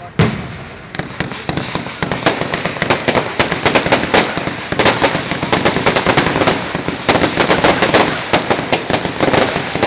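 Fireworks display: a loud bang just after the start, then from about a second in a dense, continuous crackling of many rapid small reports.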